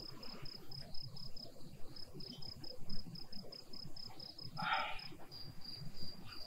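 Crickets chirping in fast, even pulses, with a brief clink about three-quarters of the way through as a drinking glass is set down on a wooden table.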